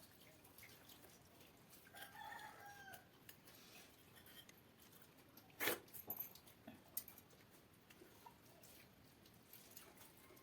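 A rooster crows faintly once, about two seconds in, for about a second. About halfway through comes one sharp knock, followed by a few lighter clicks.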